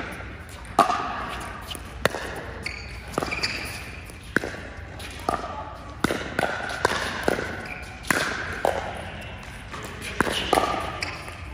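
Pickleball rally: the hard plastic ball popping off paddles and the court in a quick, uneven series of sharp hits, sometimes two or three within a second, each ringing briefly in the hall.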